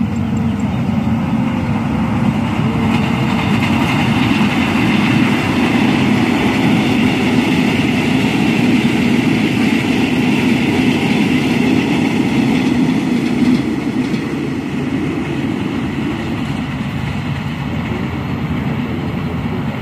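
KRL Commuter Line electric multiple unit passing along the track, its wheels rumbling on the rails. The sound builds over the first few seconds, is loudest through the middle, then drops off about two-thirds of the way through and trails away as the train moves on.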